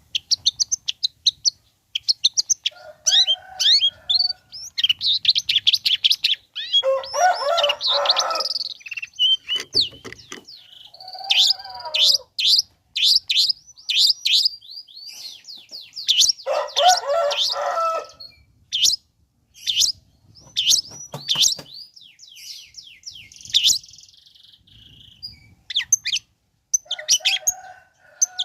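Long-tailed shrike (cendet) singing a fast, varied song. Quick sharp chips and high chirps alternate with two longer harsh, scratchy chattering passages, one about a quarter of the way in and one past the middle.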